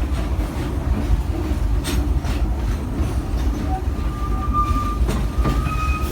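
Steam train's passenger coaches rolling along the track, heard from on board: a steady low rumble with occasional rail clicks, and a faint thin squeal twice in the last two seconds.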